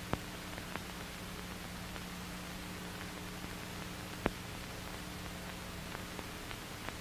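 Steady hiss and low hum of an old optical film soundtrack, with a few sharp clicks: one just after the start and a louder one a little past four seconds in.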